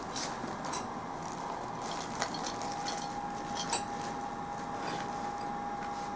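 Workshop background: a steady high-pitched hum with a few light metallic clicks and clinks, a couple of seconds apart.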